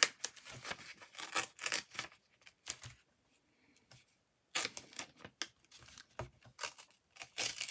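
Paper being handled, rustled and possibly torn, in bursts of short crackles and taps, with a pause of about a second and a half in the middle.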